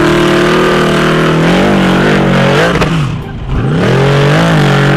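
Off-road buggy's engine revving hard under load as it climbs a steep sand slope, the revs dipping and surging several times, with a brief drop in level about three seconds in.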